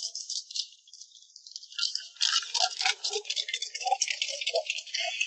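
Skateboard wheels and deck rattling over stone steps: a light, fast clatter that grows louder and denser about two seconds in, as the board goes down the stairs.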